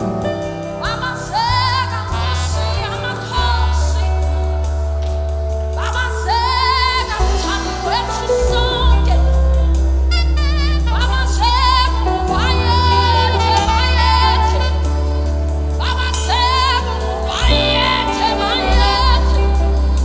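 Gospel worship music: a voice sings long held notes with strong vibrato, in several phrases, over a band with a steady bass line.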